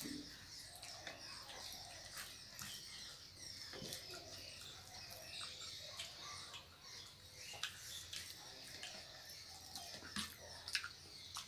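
Faint eating sounds: chewing, and fingers mixing rice and potatoes on plastic plates, with scattered small clicks.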